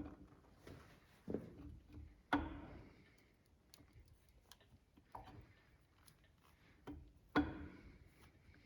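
Camshaft being eased by hand into a Mopar 318 small-block's cam bore: scattered light metallic clicks and knocks as the lobes and journals touch the cam bearings. The sharpest comes about two and a half seconds in, and another near the end.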